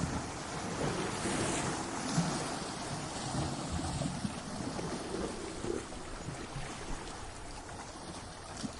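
Ocean surf breaking against rocks: a continuous rush of water that swells over the first few seconds, with a few sharp splashes, then slowly eases off.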